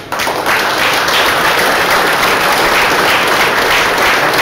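Audience applauding in a hall, starting suddenly just after the beginning and keeping up steadily.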